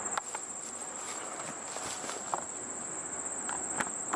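Insects drone in one steady high-pitched note, with a few faint clicks.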